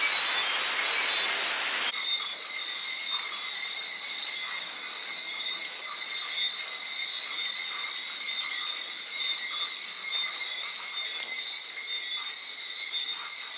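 Heavy rain pouring down for about the first two seconds. It cuts off abruptly, leaving a dense night chorus of whistling frogs: many high, thin whistles blending into a steady, shimmering double tone.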